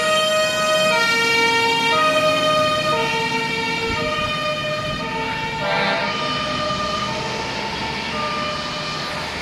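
Fire engine's two-tone siren, alternating between a low and a high note about once a second, slowly fading as the truck drives away.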